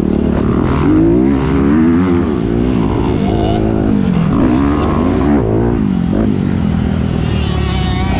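Dirt bike engine heard from on board the ridden bike, revving up and dropping off again several times as the rider works the throttle through turns and straights.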